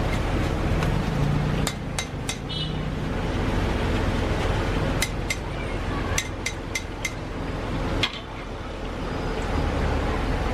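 Metal cooking utensils knocking: about ten sharp, briefly ringing strikes in loose clusters over steady background noise.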